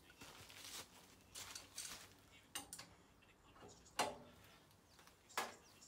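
Irregular metal clicks and scrapes of a spanner working the nut on the steering bar of a Fordson Major's front axle, with one sharp clink about four seconds in.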